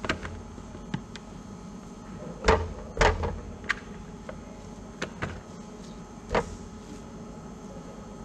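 Scattered light knocks and taps of plastic kitchenware as gelatin mass is scooped from a plastic tub into a plastic measuring jug on a scale, with two louder knocks two and a half to three seconds in.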